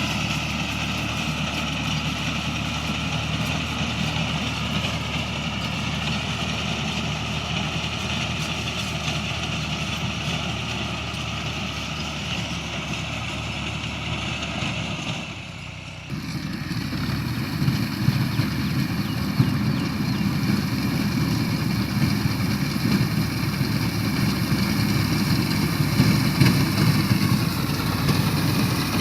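Harvesting machinery's engine running steadily. About halfway through the sound cuts abruptly to a louder, deeper engine sound.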